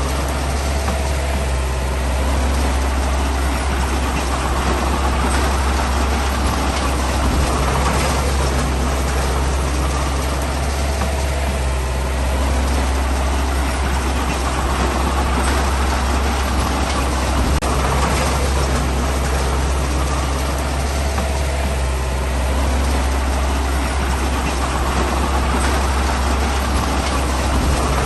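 Heavy diesel engine of earthmoving machinery running steadily under work, a deep drone with gentle swells in level every ten seconds or so.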